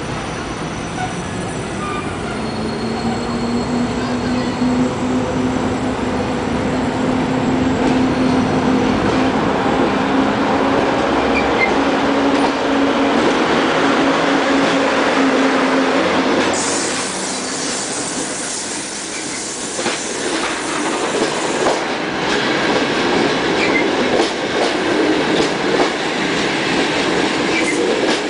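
EU07 electric locomotive pulling a passenger train away from a station: a steady humming tone rises slowly in pitch as it gathers speed, a loud hiss sets in suddenly as the locomotive passes close, about 16 seconds in, and then the coaches roll by with wheels clicking over rail joints.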